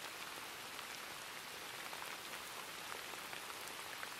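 Steady rain falling: an even hiss with a faint patter of scattered drops.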